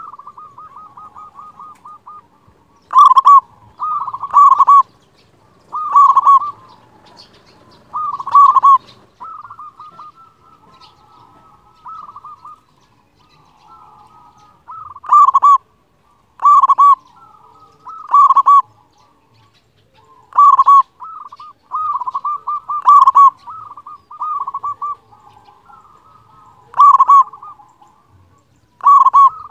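Zebra dove (perkutut) singing its cooing song: loud, clipped coos near 1 kHz, singly or in pairs every one to three seconds, with softer rolling coos between them.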